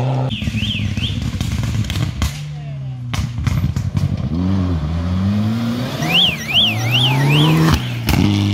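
Rally car engines revving hard on a gravel stage, the pitch climbing and dropping with gear changes, including a Mitsubishi Lancer Evolution passing close. Twice a high warbling tone rises and falls several times in quick succession.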